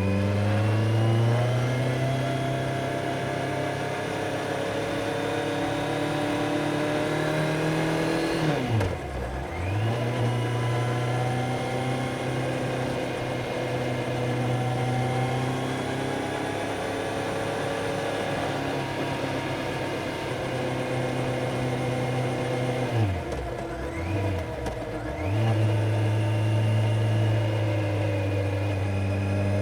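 Kawasaki Z900 inline-four engine pulling under way. Its pitch rises at the start, then holds steady. The revs drop sharply and pick up again about nine seconds in, and dip twice quickly near the twenty-four-second mark, like gear changes.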